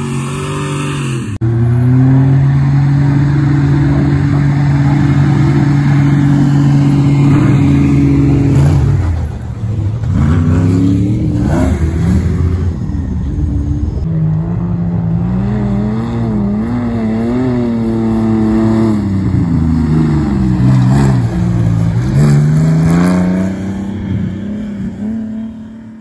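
Chevy pickup prerunner's engine running hard in the sand, held at a steady pitch for several seconds, then revving up and down again and again as the truck works up a dune. The sound fades out at the end.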